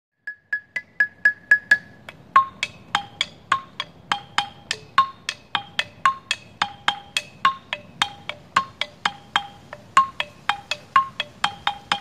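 Outdoor xylophone struck with mallets: one high note is repeated quickly about seven times, then a changing pattern of notes follows at about three to four strikes a second, each ringing briefly.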